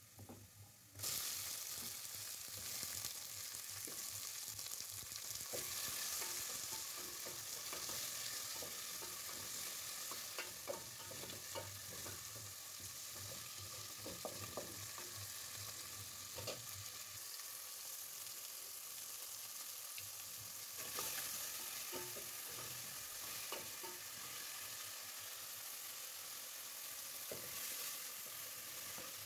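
Onions and chopped tomatoes frying in hot oil in a metal pot, a steady sizzle that jumps suddenly louder about a second in. A wooden spoon stirs and scrapes through the food, with small knocks against the pot.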